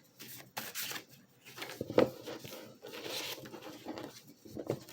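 Tarot cards being handled and shuffled: irregular rustling and scraping strokes, with a sharp knock about two seconds in.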